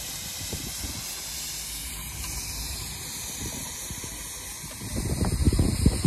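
Steam traction engine hissing steadily as steam escapes. About five seconds in, low, irregular rumbling thumps come in and grow loud.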